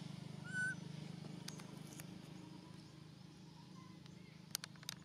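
A single short, high-pitched animal squeak about half a second in, over a steady low hum like a distant motor that slowly fades; a few sharp clicks follow near the end.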